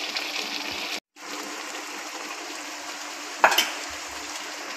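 Steady simmering sizzle from a wok used as a steamer, with a sharp metal clink about three and a half seconds in as a steel bowl of steamed egg is lifted off the rack. The sound cuts out briefly about a second in.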